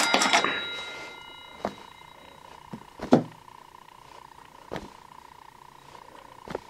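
A minibike's rear wheel and chain sprocket spun by hand, the whirr of the turning wheel fading over the first second, then five scattered light clicks as it turns on, over a faint steady hum.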